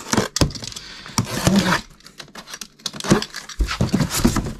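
Utility knife slicing through the packing tape on a cardboard box, then the cardboard flaps pulled open with scraping and rustling, among sharp knocks of the box being handled.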